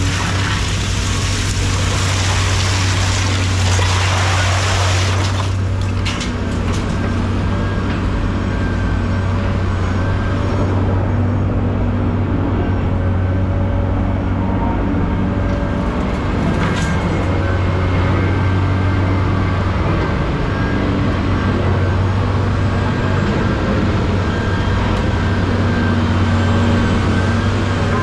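Engine of heavy machinery running steadily, a low even drone, with a broad hiss over it for the first five seconds or so.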